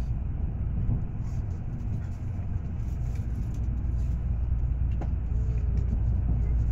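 Low, steady rumble of a Tokaido Shinkansen train running as it pulls into a station, heard from inside the passenger cabin.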